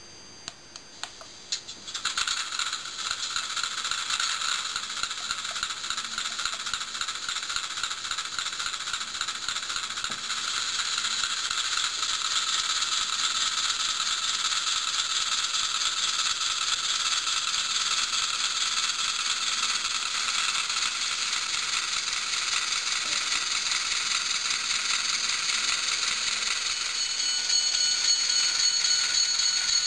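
H0 scale model diesel switcher running on the track: the steady fine rattling whir of its small motor, gears and wheels on the rails. It sets in about two seconds in after a few sharp clicks and grows a little louder near the end.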